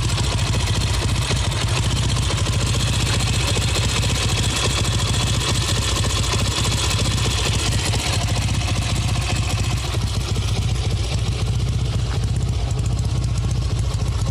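Kawasaki W1SA's air-cooled parallel-twin engine idling steadily, a little fast at just over 1000 rpm. The crank and con-rod knock it had is gone after a rebuild, though a slight mechanical noise remains, which the owner puts down to used parts.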